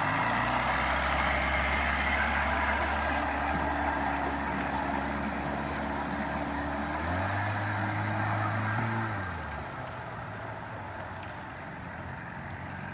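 A 35 hp outboard motor pushes a small jon boat at a steady speed. About seven seconds in its revs jump higher, and then it fades away, with water rushing past the hull throughout.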